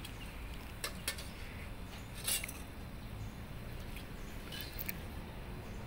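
Metal spatula scraping and clinking against a wok as pieces of fried dried rice are stirred and scooped: a few separate sharp scrapes and clicks over a low steady hum.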